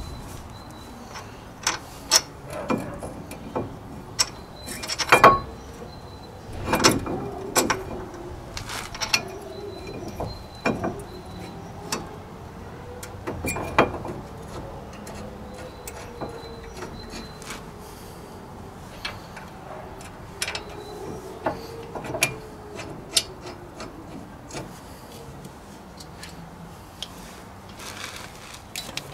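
Irregular metal clinks and knocks, some briefly ringing, as a KIA Ceed's front brake caliper parts are handled and fitted back over the brake disc; the loudest knocks come about five to seven seconds in and again near fourteen seconds.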